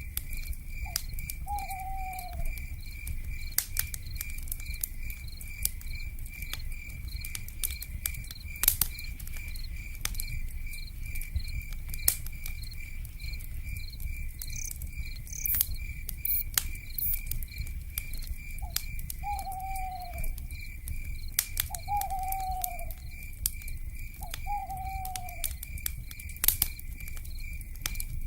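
Campfire crackling, with scattered sharp pops and a low rumble, under a night insect chirping in a steady, even pulse. Four short, falling owl calls sound, one near the start and three close together later on.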